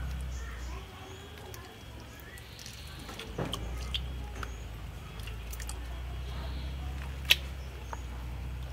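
Wet squelching and light splashing of hands rubbing and rinsing raw snake meat and innards in a basin of water. Scattered small clicks, with one sharp click about seven seconds in, over a low steady hum.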